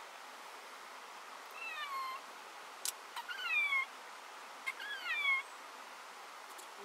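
An animal calling three times, about a second and a half apart, each call short and falling in pitch, with a sharp click just before the second call.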